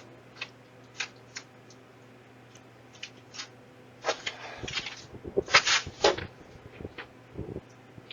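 A string of short rustling and scuffing noises, clustered about four to six seconds in, over a faint steady electrical hum, heard through a doorbell camera's microphone.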